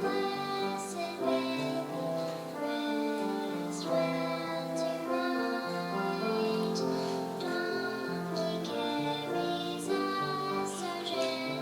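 Music: singing in high voices over held instrumental notes, moving from note to note in steps.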